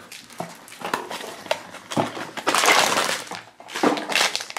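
Foil blind-box bag crinkling as it is handled, loudest about halfway through, with a few light clicks before it.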